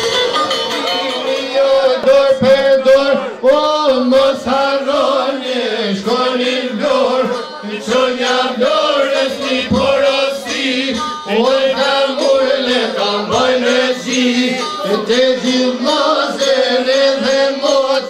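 A group of men singing a northern Albanian folk song together, loudly and in unison, over music.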